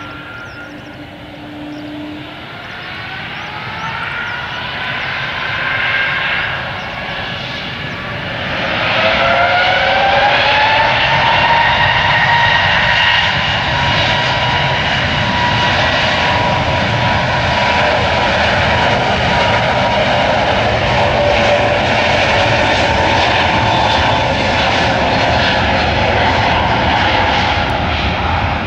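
Airbus A321neo's twin Pratt & Whitney PW1100G geared turbofans spooling up for takeoff. Rising whines climb in two steps, the second about eight seconds in, and then settle into a loud, steady run of jet noise as the airliner rolls down the runway.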